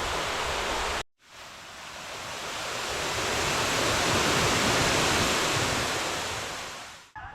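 Rushing roar of a heavily flowing waterfall, an even hiss with no pitch. It cuts off about a second in, then swells back in, loudest around the middle, and fades out near the end.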